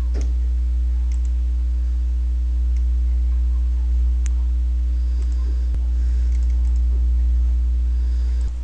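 Steady low electrical hum with a few faint steady higher tones above it, and a few faint clicks scattered through.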